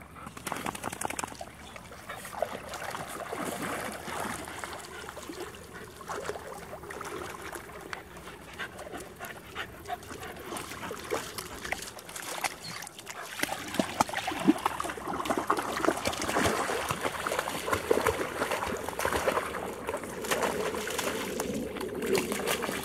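Puppies splashing through shallow water, with a dog whining on and off.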